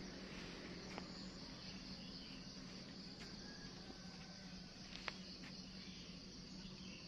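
Steady high-pitched insect chorus over a low steady hum, with three faint clicks.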